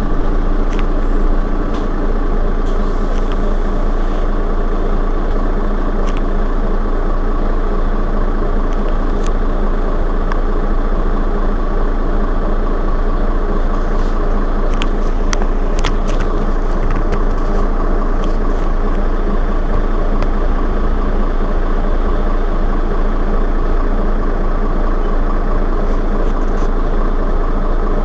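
Mercedes-Benz Citaro Facelift city bus's rear-mounted engine idling steadily while the bus stands at a stop.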